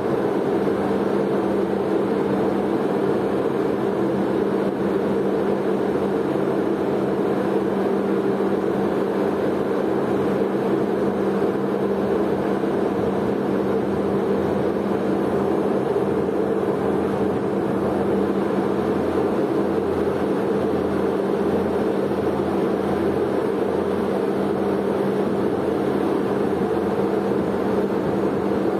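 Steady drone of ship engines and machinery, a constant low hum with no change in level.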